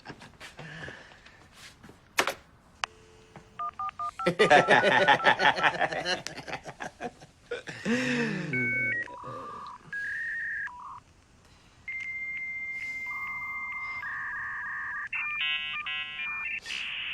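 Dial-up computer modem dialing out with touch-tone beeps, then connecting: a run of handshake tones, a long steady high tone, warbling chirps, and finally a steady hiss as the connection is made. Before the connection tones begin, there is a louder, dense stretch of sound about four seconds in.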